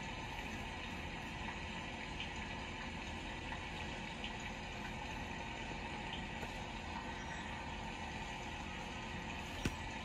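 Steady background noise, a constant hiss with a faint hum, and a single sharp click near the end.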